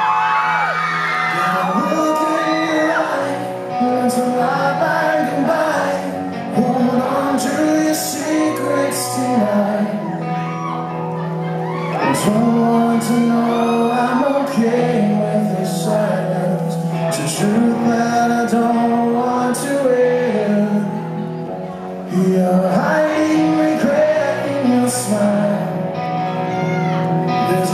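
Live rock band playing a slow song with a male lead vocal sung into a microphone, with shouts and whoops from the audience.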